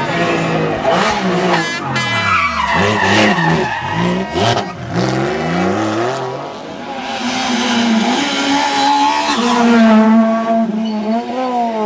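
Rally cars at full throttle through a bend. A Porsche 911 GT3's flat-six revs up and down through hard downshifts and acceleration, with several sharp cracks. Then there is tyre noise, and a second, smaller rally car accelerates away near the end.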